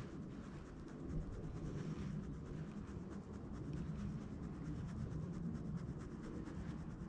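Spinning reel cranked steadily during a lure retrieve: a soft scratchy whirr over a low rumble.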